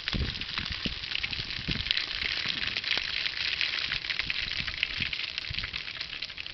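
Whole spices (fennel, black peppercorns, star anise and bay leaf) sizzling in hot oil: a steady, dense crackle of tiny pops, with a few low thuds near the start.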